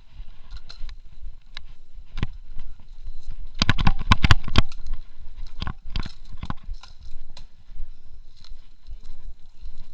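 Knocks and clatter of a mountain bike on a rough dirt trail, with a quick run of loud knocks and rattles about four seconds in.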